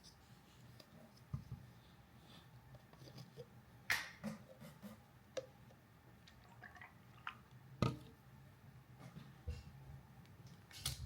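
A few scattered light clicks and taps from handling the glue and activator bottles and the mixing cup, over a faint steady low hum.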